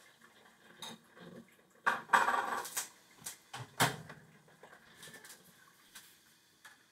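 Household clatter of a table being set: small knocks and clicks as things are handled and put down, a rustling burst about two seconds in, and a heavier thump just before four seconds.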